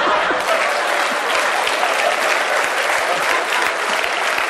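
Live audience applauding steadily, with some laughter mixed in, in response to a punchline.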